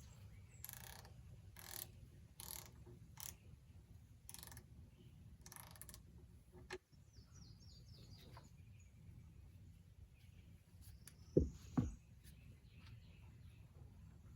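A ratchet wrench working in about six short clicking strokes, loosening the engine oil drain plug on a John Deere 6300 tractor. Birds chirp, and two low thuds come about eleven to twelve seconds in.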